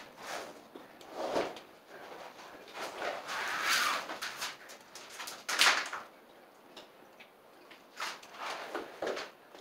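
Vinyl sheet flooring being worked into place: a series of separate swishing and scraping rubs against the floor, a longer one a few seconds in and the loudest, sharp one about halfway through.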